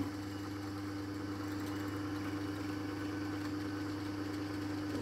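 Drill press motor running steadily with a constant hum while its bit drills a fixing hole in a cherry workpiece.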